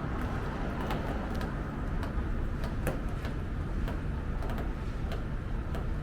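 Footsteps on a hard pavement, about two a second, over a steady low street rumble.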